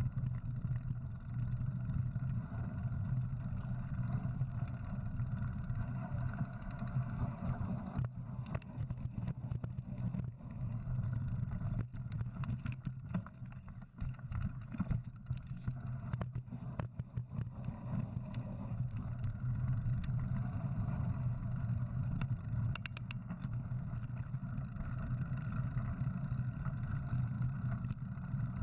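Mountain bike ride heard through a rider-mounted action camera: a steady low rumble of tyres on dirt and wind on the microphone, with clatter and ticks from the bike over rocky ground in the middle stretch.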